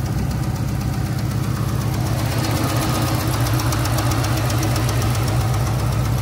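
Dodge 6.4-litre HEMI V8 idling steadily with a fast, even ticking over its low note. It runs without the shake it had, with Sea Foam in the fuel.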